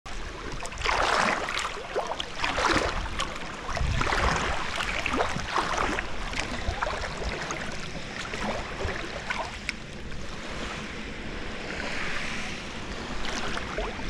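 Sea water splashing and sloshing around an inflatable air mattress as it is paddled by hand, in irregular surges, with a low wind rumble on the microphone.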